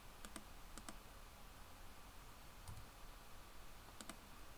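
A few faint, isolated computer mouse clicks over near silence, as symbols are picked and placed in a schematic editor.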